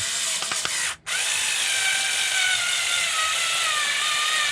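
Small Skil cordless drill running in two bursts: a short one of about a second, a brief stop, then a longer run whose whine slowly drops in pitch as it works under load.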